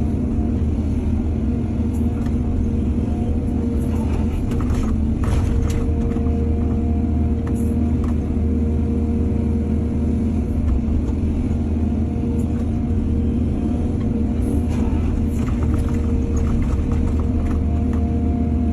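Excavator's diesel engine running steadily under load, with two spells of clattering, about four seconds in and again about fifteen seconds in.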